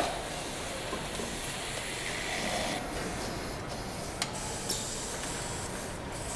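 Factory noise on an engine assembly line: a steady hiss of machinery, with two sharp clicks about half a second apart a little past the middle.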